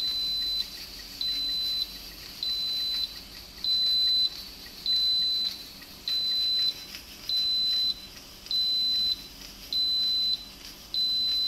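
Instant Pot Duo Plus electric pressure cooker beeping to signal that its steam program has finished: ten evenly spaced, high single-tone beeps, each about half a second long and a little over a second apart.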